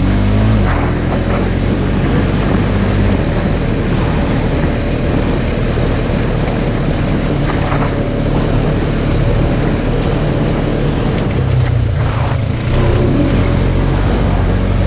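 Side-by-side UTV engine running steadily under way, with drivetrain and trail noise. It eases off briefly about twelve seconds in, then pulls again.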